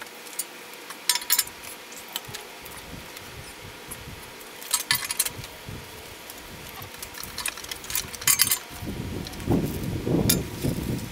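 Short bursts of metallic clicking and clinking, four or so, from hand tools and parts being worked on a bare cast LS V8 engine block on its stand. In the last couple of seconds there is denser, lower handling noise.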